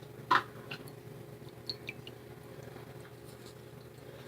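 One sharp tap or click about a third of a second in, then a few fainter ticks over the next second and a half, over a steady low hum: small objects being handled.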